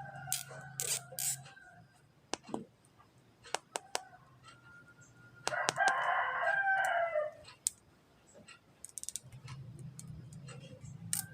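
A rooster crowing once, a loud call of nearly two seconds about halfway through, with scattered sharp clicks around it.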